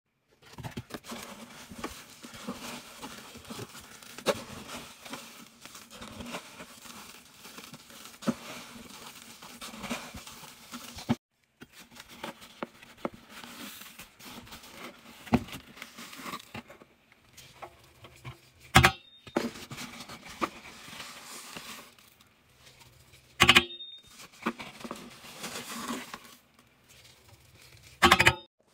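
Cardboard box of washing powder being opened and handled, with powder scooped and poured: steady rustling, scraping and crackling. Three sharp knocks stand out in the second half, and the sound cuts off abruptly twice.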